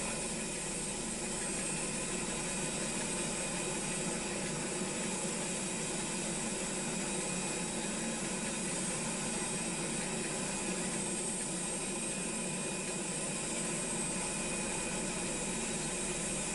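Steady hiss and hum of a parked jet airliner, with several steady tones held throughout and no change in level.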